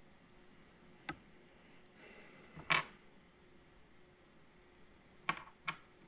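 Small metal parts of a motorcycle gas cap lock clicking and tapping as they are handled and set down on a wooden workbench: four sharp ticks, the loudest a little before three seconds in, and two close together near the end.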